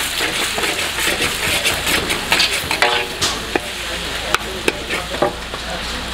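Mee goreng noodles and eggs sizzling in a hot wok while a wok spatula scrapes and knocks against the pan, with many sharp clicks over the steady sizzle.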